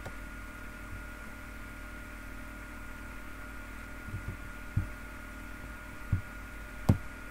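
Steady low electrical hum with a thin high whine over it, and three soft knocks in the last few seconds.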